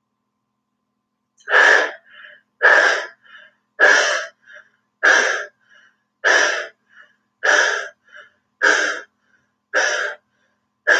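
A woman doing dog breath (lion breath) pranayama with her tongue stretched out: forceful panting exhales from the back of the throat, a little more than one a second, each followed by a short faint inhale. The panting starts after about a second and a half of silence.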